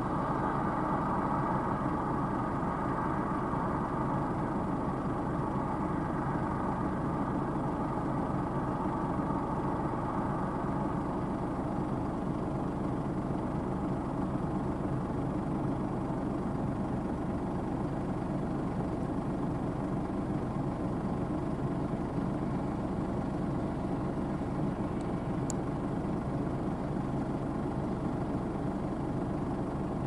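Fendt 5220 E combine harvester running at work in a pea field, its engine and threshing machinery giving a steady, even drone. A higher hum in the sound fades out about a third of the way through.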